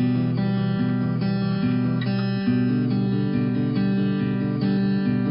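Background music led by acoustic guitar, with a steady flow of chords.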